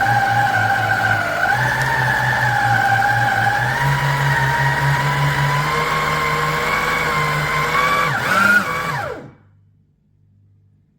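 Electric meat grinder motor running with a steady whine that edges up in pitch a couple of times. About eight and a half seconds in, the pitch falls as it winds down and stops.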